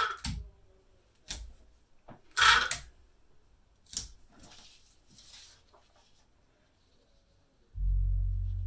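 Sheets of printer paper being handled and slid across a cutting mat: a few short, crisp rustles, the loudest about two and a half seconds in. Near the end a low steady hum comes in for about a second.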